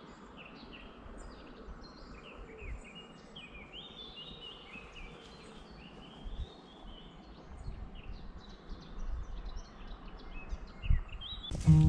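Several songbirds chirping and singing in quick, varied phrases over a faint outdoor hiss, with a couple of soft low thumps. Acoustic guitar music comes in at the very end.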